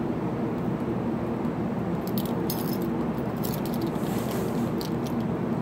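Keys on a lighter's keyring jingling lightly a few times as a corn cob pipe is relit, over a steady rushing noise.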